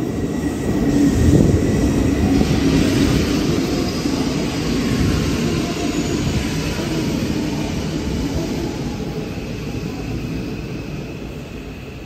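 Hanshin 5700-series electric train running into the station past the platform and braking to a stop. The wheels and running gear are loudest about a second in as the front cars go by, then the noise slowly fades as it slows, with faint thin high whines over it.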